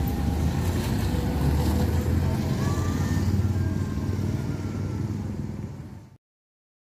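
Road traffic at a railway level crossing: car, minivan and motor scooter engines running close by as they drive over the tracks, a heavy steady low rumble. The sound cuts off suddenly about six seconds in.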